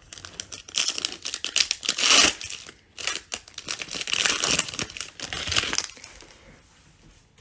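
Foil wrapper of a 2020 Panini Prizm football-card pack crinkling as it is torn open and the cards are slid out. Dense crackling that stops about six seconds in.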